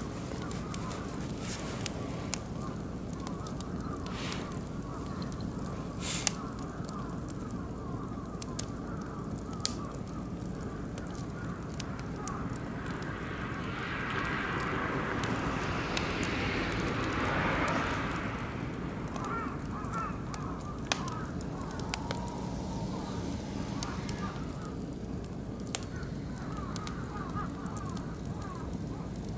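Oak and beech wood fire crackling, with sharp pops scattered irregularly through it. About halfway through, a rushing hiss swells up for a few seconds and fades again.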